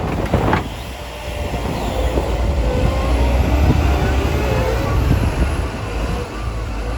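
Heavy snow-removal machinery running: a steady low engine rumble with a faint wavering whine over it, and a gust of wind on the microphone at the very start.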